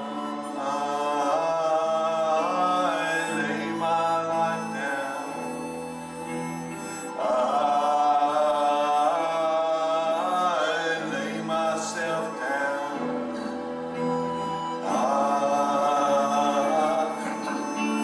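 Worship song: a sung melody over sustained chords and slowly changing bass notes.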